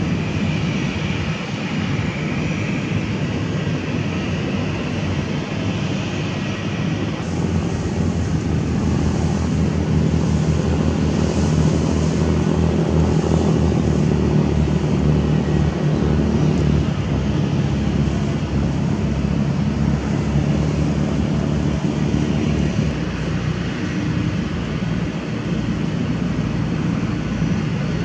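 Airbus A320-214's twin CFM56-5B turbofans running at low taxi power: a steady jet rumble with an engine whine. It swells from about eight seconds in, loudest around the middle, then eases slightly.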